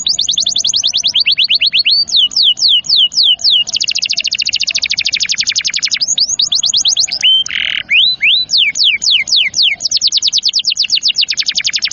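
Domestic canary singing: fast series of repeated whistled notes sweeping downward, broken by two long, very rapid trilled rolls, one before the middle and one near the end.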